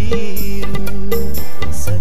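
Music: a song's accompaniment with a regular drum beat and a steady bass under a wavering melody line.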